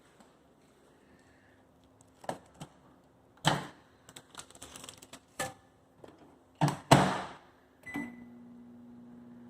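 Microwave oven being handled: knocks and clicks of the door and keypad, then a short beep about eight seconds in as the oven starts running with a steady hum.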